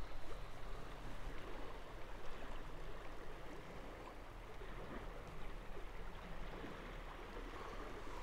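River water flowing and rippling, an even watery hiss.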